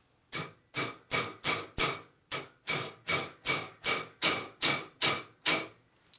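About fourteen steady hammer blows, roughly three a second, each ringing briefly, as a new part is beaten down onto a motorcycle front fork leg until it sits tight.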